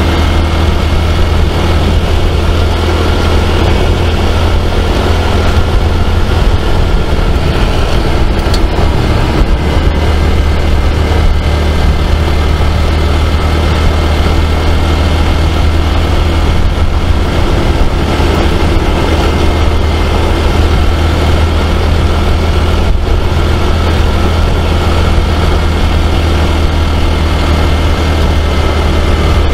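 Honda CT125 Trail 125's single-cylinder engine running steadily under way, mixed with the rush of the tyres rolling over a gravel road.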